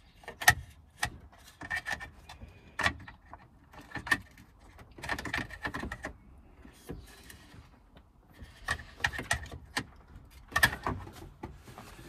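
Irregular sharp plastic clicks and rattles from the BMW X5's gear selector and handbrake switch trim being handled and fitted: the new switch's wiring connector plugged in and the selector surround pressed into the centre console. The sharpest click comes about half a second in.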